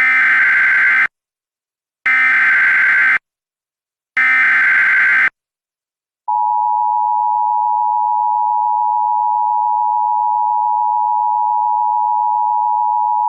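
Emergency Alert System SAME header: three shrill bursts of digital data tones, each about a second long with a second of silence between, followed about six seconds in by the long, steady EAS attention-signal tone that announces an emergency alert.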